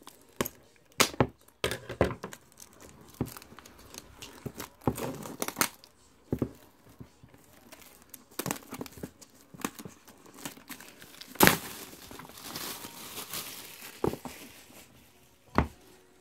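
Plastic shrink-wrap being torn off a boxed set and crumpled by hand, with irregular crinkling and crackling and a louder rip about eleven and a half seconds in, followed by a couple of seconds of rustling.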